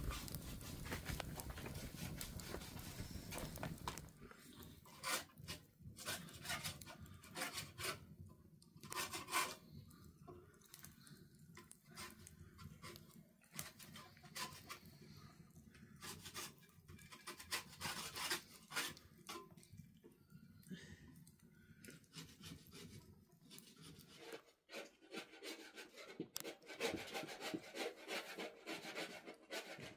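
Irregular rubbing and scraping strokes. They are denser and more continuous for about the first four seconds, then come as separate strokes with short gaps.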